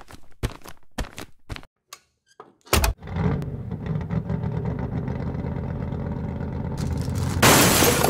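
Intro sound effects: a run of sharp clicks and small breaking sounds, then a heavy thud and a steady low engine-like rumble. A loud crash starts near the end.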